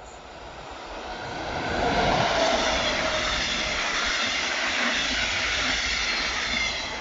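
DB Class 143 electric locomotive and five double-deck coaches passing at speed, wheels running on the rails. The noise swells over about two seconds, holds loud, then starts to fade near the end.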